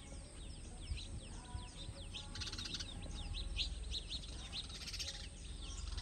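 A flock of house sparrows chirping, many short quick chirps overlapping without a break, over a low steady rumble.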